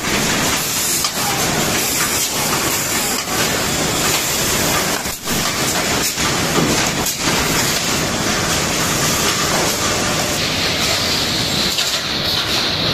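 Poultry packing-line machinery running, a steady loud clattering din of conveyors and packing machines with scattered knocks. A high hiss joins about ten seconds in.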